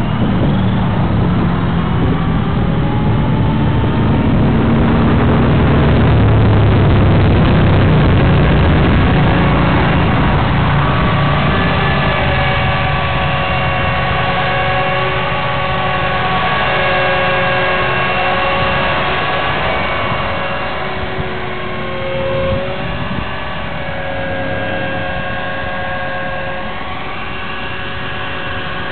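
Radio-controlled Airwolf scale helicopter in flight, its engine and rotor whine wavering up and down in pitch as it manoeuvres. Heavy wind rumble on the microphone is strongest in the first several seconds.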